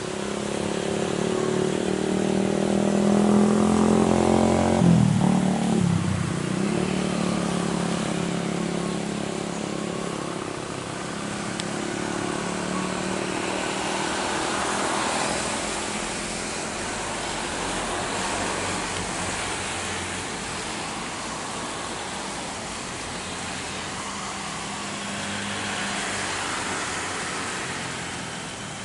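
Jet engines of a Boeing 737 MAX airliner (CFM LEAP-1B turbofans) on landing approach. The engine whine grows loudest about four to five seconds in as the aircraft passes close, its tones sweeping down and back up, then gives way to a steadier rushing jet noise that swells again twice.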